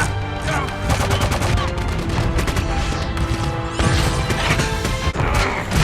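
Bursts of rapid gunfire from a film battle scene, over a loud orchestral score.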